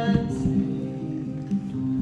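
Music with guitar: the recorded backing track for a musical-theatre number, with sustained chords and strummed strokes.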